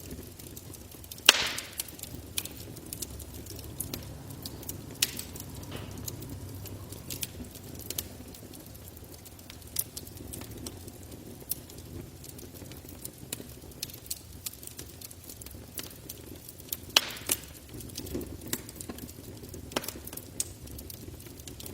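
Campfire crackling: irregular sharp snaps and pops over a low, steady rush of burning wood, with two loud pops about a second in and again near the end.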